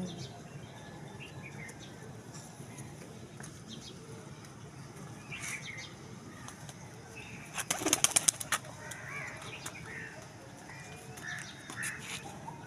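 Domestic pigeons' wings clapping as they take off: a quick run of about eight sharp claps about eight seconds in, with faint bird chirps around it.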